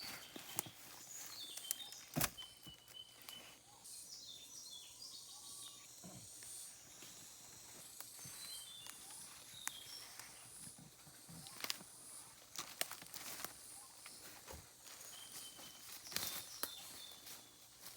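Forest ambience after rain: birds give short high chirps again and again over a faint high hiss, with scattered snaps and rustles of someone moving through undergrowth; the loudest snaps come about two seconds in and near the end.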